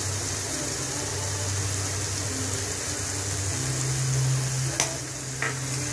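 Sautéed garlic, onion and tomatoes sizzling in oil in a frying pan, a steady frying sound. A steady low hum runs underneath and steps up slightly in pitch a little past halfway, and there are two light clicks near the end.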